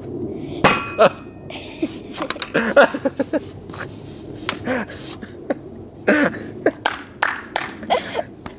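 A boy coughing and laughing in short, irregular bursts, with a man laughing along. The fits come from a face full of the fine white powder that fills an exploding gag golf ball.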